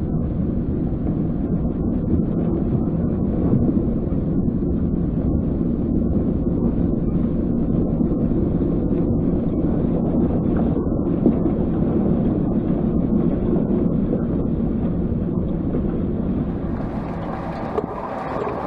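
Kia Mohave SUV driving: a steady low rumble of road, tyre and engine noise.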